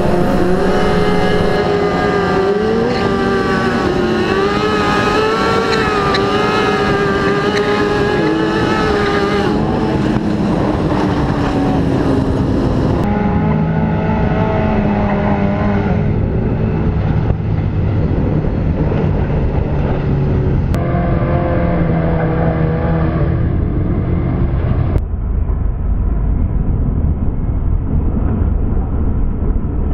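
Sport motorcycle engines revving up and down and accelerating along a street, heard in several short clips spliced one after another.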